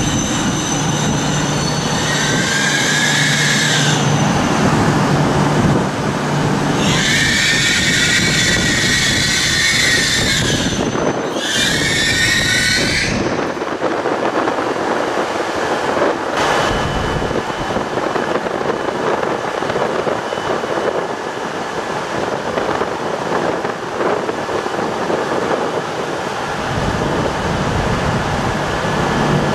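An E6-series Shinkansen train slowing to a halt, with three bouts of high squealing as it brakes. Once it has stopped, a steady hum from the standing train's equipment carries on.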